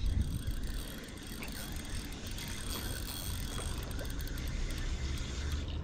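Steady low wind rumble on the camera microphone, with the soft whir of a spinning reel being cranked to retrieve a lure.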